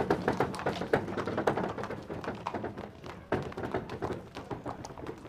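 Irregular wooden taps, knocks and clatter of a busy market street, many small strikes close together.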